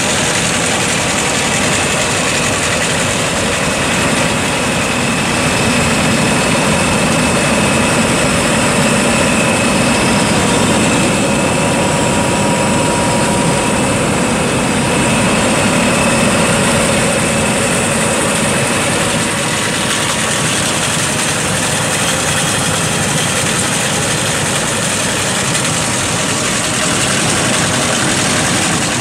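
John Deere S660 STS combine's diesel engine running steadily, with a thin high-pitched whine held over the drone.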